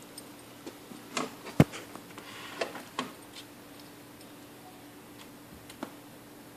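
Scattered clicks and knocks from a bulldog puppy and a kitten play-wrestling on carpet, the loudest a sharp knock about a second and a half in, over a faint steady hum.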